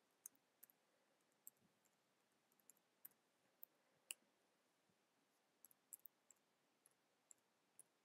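Near silence broken by faint, irregular clicks of computer keyboard keys: an email address and a password being typed, about fifteen keystrokes with short runs and pauses between.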